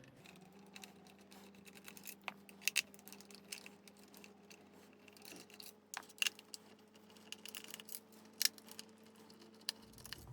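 Scattered light clicks and taps of a screwdriver and hands working screws out of the plastic housing of a Dyson V10 stick vacuum, over a faint steady hum.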